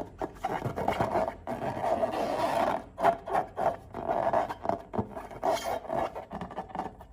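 Glossy slime squished and stretched by hand: rough, sticky squelching in uneven bursts, with small clicks and pops between them.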